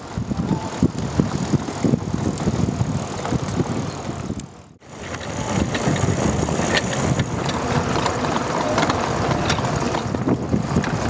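Pedal go-kart rolling over paving stones, its wheels rumbling and rattling unevenly. The sound cuts out for a moment about five seconds in.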